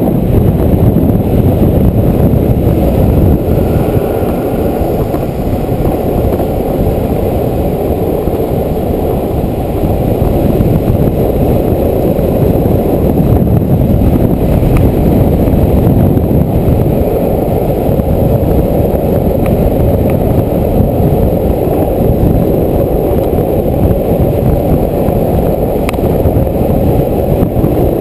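Wind rushing over an action camera's microphone at downhill longboard speed, a loud, steady roar with no pitch to it.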